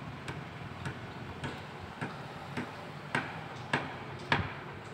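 Steady, regular ticking, a sharp tick a little under twice a second, growing louder over the last couple of seconds.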